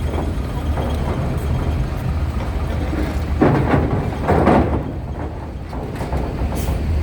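Heavy vehicle engines running with a steady low rumble, with two louder rushes of noise about three and a half and four and a half seconds in.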